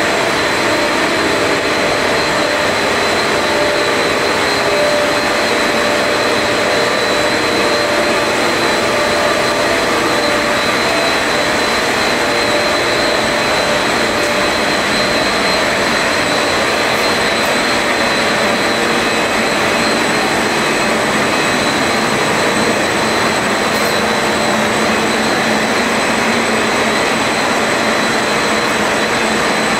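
XPE foam sheet extrusion and foaming line running: a loud, steady rushing machine noise with a thin, steady high whine over it.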